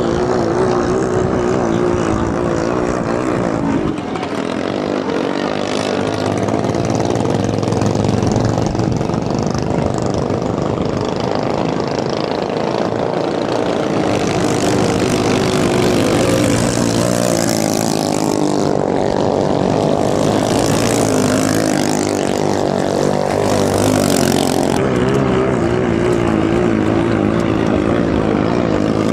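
Several racing ketinting longtail boats' small 6–7 hp engines running flat out together, their pitch wavering and shifting as the boats pass and change speed.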